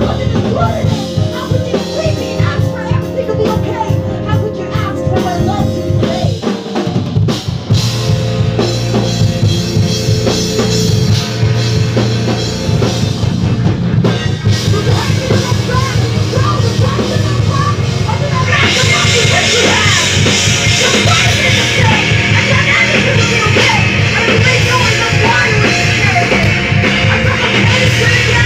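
Live rock band playing an instrumental passage on electric guitars and bass guitar. About two-thirds of the way through, the band comes in louder and brighter.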